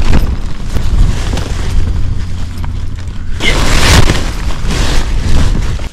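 Strong wind buffeting the tent and microphone as a continuous low rumble, with a louder surge of rustling nylon fabric about three and a half seconds in.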